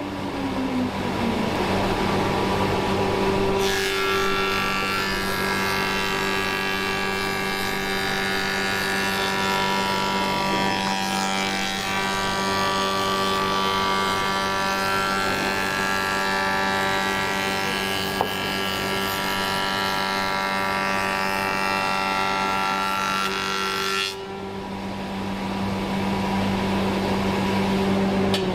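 Guilliet woodworking machine running with a steady hum. From a few seconds in until about four seconds before the end it cuts a plank fed through it, with a dense, bright, steady sound, then drops back to running free.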